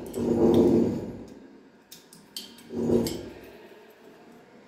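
Screw being driven by hand screwdriver through a chrome toothbrush-holder base plate into a tiled wall, giving a pitched creak in two bursts as it turns, about a second in the first and again near three seconds. A few light metallic clicks come between the bursts.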